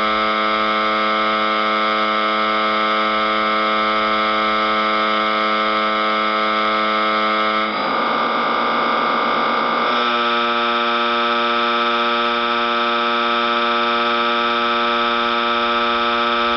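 A cartoon crying sound effect, time-stretched into a long, steady droning wail. About eight seconds in it wavers briefly, then settles into a new held tone.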